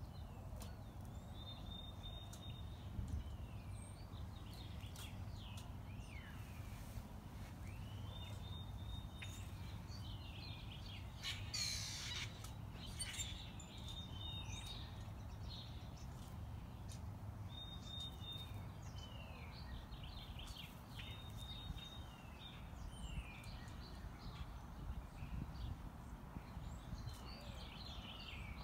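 Songbirds chirping in short repeated phrases every few seconds over a steady low outdoor rumble, with a brief rustling burst about twelve seconds in.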